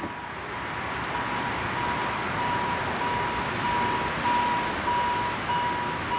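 An electronic warning beep: one steady high tone broken by short gaps, over a broad rushing noise, after a sharp click at the start.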